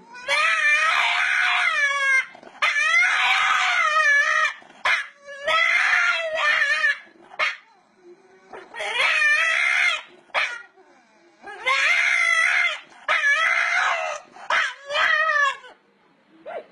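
A dog howling in a run of about seven long, high, wavering calls, each a second or two long with short breaks between.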